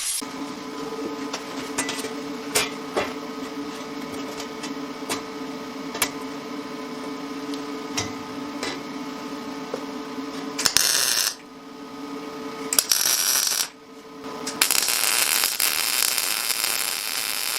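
Metalworking in a shop: a machine hums steadily with light metal clinks, then from about eleven seconds in come several bursts of harsh hissing noise.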